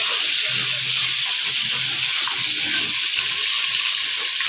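Steady hiss of food sizzling in a pan of sauce over a lit gas burner.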